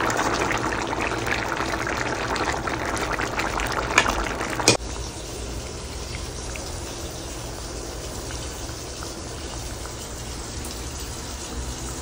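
Bottle gourd and shrimp curry bubbling and sizzling in the pan, with two short knocks about four seconds in. Then the sound drops abruptly to a quieter steady hiss.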